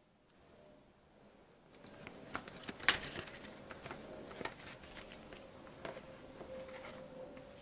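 Paper instruction leaflet rustling and crinkling as it is handled and folded, with light knocks of a cardboard box. It starts about a second and a half in, with the sharpest crackle about three seconds in, over a faint steady hum.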